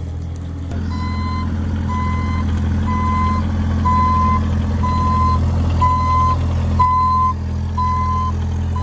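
Bobcat E35 compact excavator's diesel engine running steadily while its travel alarm beeps about once a second, starting about a second in, as the machine moves on its rubber tracks.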